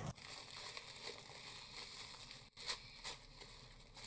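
Faint rustling and crinkling of tissue paper as a wrapped wooden toy piece is unwrapped by hand, with two soft knocks about three seconds in.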